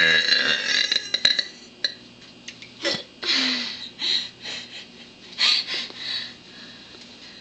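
A woman burping once at the start, a short pitched belch, followed by several short breathy sounds as she tries to bring more up.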